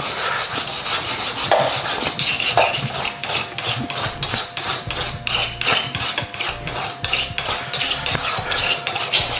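Kitchen knife being sharpened: a quick run of rasping metal strokes, about three or four a second. The knife is a bit dull before cutting up a whole chicken.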